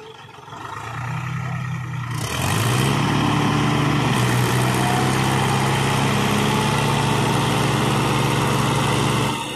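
Tractor diesel engine pulling hard in deep mud: it revs up sharply about two seconds in, is held at high revs, then eases off near the end.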